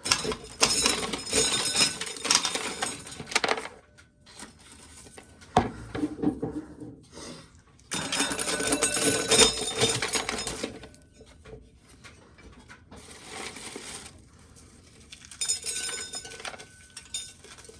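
Corn sheller stripping ears of corn, the kernels rattling down into a plastic pail in four bursts of a few seconds each, with quieter gaps between.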